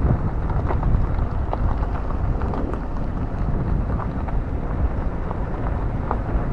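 Low rumbling road noise from a car driving on a rough road, with scattered small ticks and knocks.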